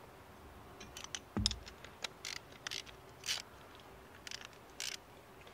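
A steel bolt being worked into a freshly drilled hole in a metal mounting plate: a scatter of short scrapes and clicks, with one heavier knock about a second and a half in. Leftover burrs in the hole make the bolt stiff to push through.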